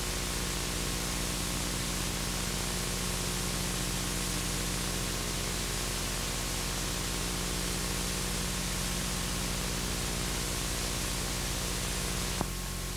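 Steady hiss and static from an old VHS tape's soundtrack with nothing recorded on it, over a steady low hum and a faint thin tone. A single click comes about twelve seconds in, after which the hiss drops a little.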